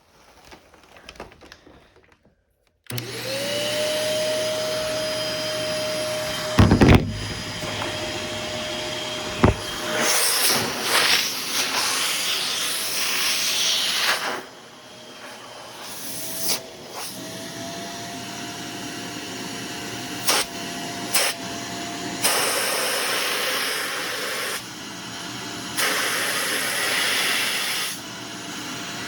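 Old bagless vacuum cleaner switched on about three seconds in, its motor whine rising quickly to speed, then running while vacuuming. The whine shifts in pitch and loudness as it is worked, with a couple of sharp knocks a few seconds after it starts.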